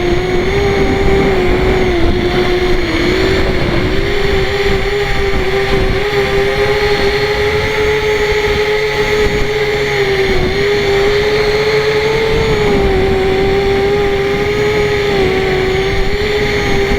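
A mini hexacopter's electric motors and propellers whine steadily in flight, the pitch wavering slightly up and down.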